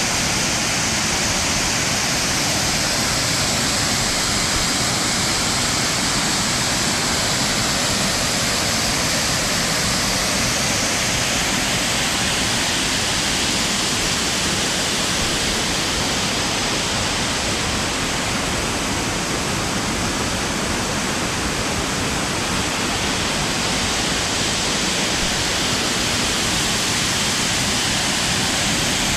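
Waterfall, two strands of water pouring over rock into a plunge pool: a steady, even rush of falling water.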